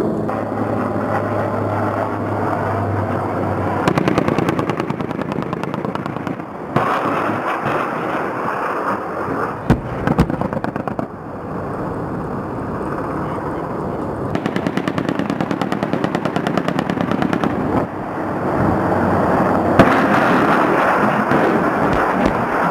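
Several bursts of rapid automatic gunfire from a military helicopter over the steady noise of its rotor and engine.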